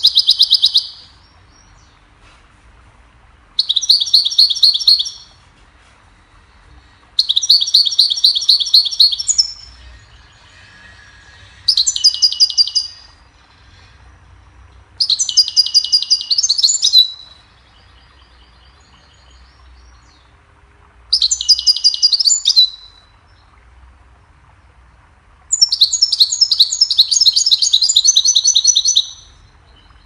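European goldfinch singing: seven phrases of rapid, high twittering notes, each lasting one to three seconds, with pauses of about two seconds between them.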